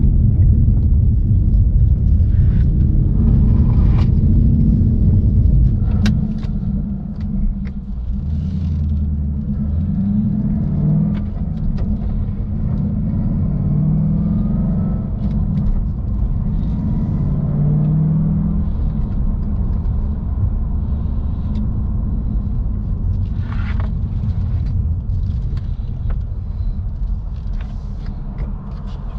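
2016 Ford Mustang GT's 5.0 V8 with a Roush cat-back exhaust running, louder for about the first six seconds, then easing off, with its pitch rising and falling several times.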